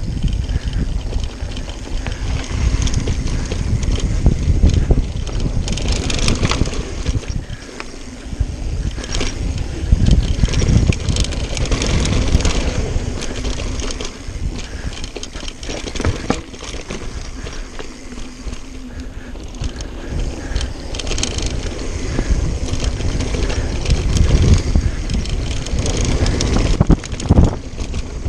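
Mountain bike riding fast down a loose dirt trail: wind rushing over the microphone, tyres crunching over the dirt, and the bike's chain and parts clattering over bumps, louder and quieter as the speed changes.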